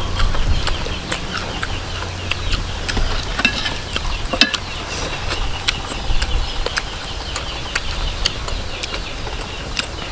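Close eating sounds of crispy fried chicken hearts being bitten and chewed, with many short, sharp crunches and mouth clicks.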